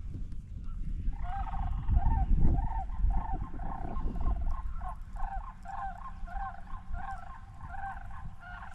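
A large bird calling in a fast series of short rising-and-falling notes, about two a second, starting about a second in; the uploader labels it a stork. Low rumbling noise underneath, loudest around two seconds in, fades by the middle.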